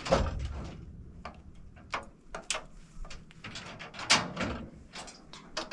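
Irregular knocks and clatters of objects being handled, with the loudest thuds near the start and about four seconds in.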